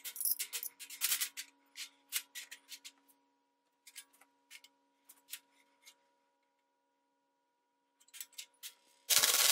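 Steel foot plates with welded-on nuts clicking, knocking and scraping as they are handled and set down on a steel tabletop. About nine seconds in, a flux-core wire welder's arc starts with a loud, steady crackle.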